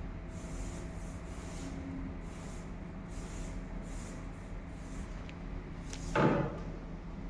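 Cloth wiping a steel weld specimen clean with solvent cleaner: faint repeated rubbing strokes about twice a second over a steady background hum. About six seconds in comes one short, louder knock, like a tool or can set down.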